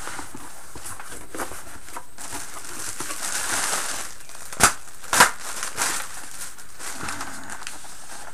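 Box and packing material being handled and opened: continuous rustling and crinkling, with two sharp snaps about halfway through.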